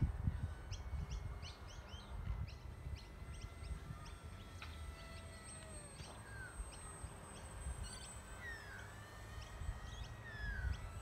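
Many birds calling: quick repeated chirps and short sliding whistles throughout, over a low rumble of wind on the microphone.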